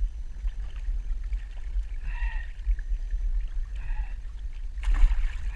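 Lake water sloshing around hands and shoreline rocks over a steady low wind rumble on the action camera's microphone, as a pike is released by hand. There is a short sharp splash about five seconds in.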